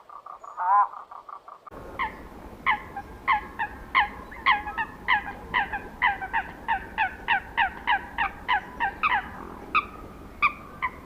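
Poultry calling: a single short call about a second in, then a long run of short calls that each drop sharply in pitch, two to three a second, over a steady hiss.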